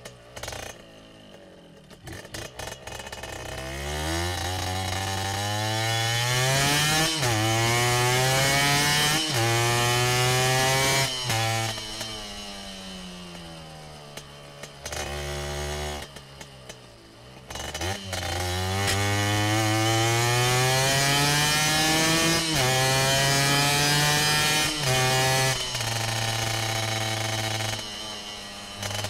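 Motorcycle engine recorded onboard, revving up through the gears with several quick upshifts, each a sharp break in the rising pitch, then falling away as the throttle closes. After a brief lull a little past the middle it pulls up through the gears again, with two more shifts, before easing off near the end.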